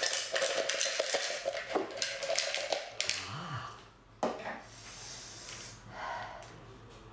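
Small spiral-shelled sea snails tumbling out of a glass jar onto a plate: a dense clatter of shells for about three seconds, then a single sharp knock about a second later.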